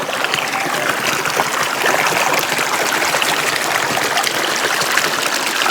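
Stream water rushing and splashing over rocks, a steady, fairly loud flow.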